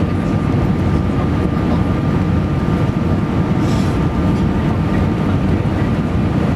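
Steady roar inside a jet airliner's cabin on final approach to landing: engine and airflow noise, with a faint steady whine running through it.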